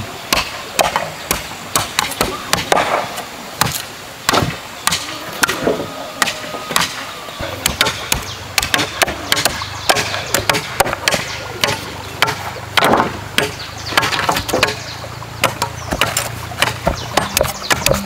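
Machete chopping and shaving the end of a wooden stake to a point against a wooden block: repeated sharp wooden chops at an irregular pace of about two or three a second.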